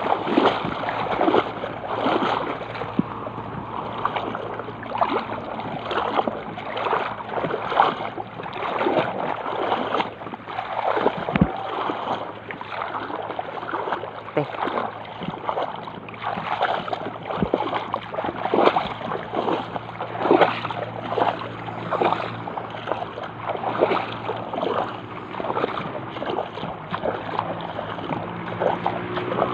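Seawater splashing and lapping against the hull of a small boat moving over shallow water, in irregular splashes about every half second over a steady low hum.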